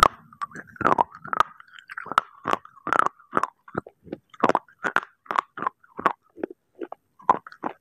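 Close-miked chewing of brittle baked clay pieces: a steady run of sharp crunches, about two to three a second.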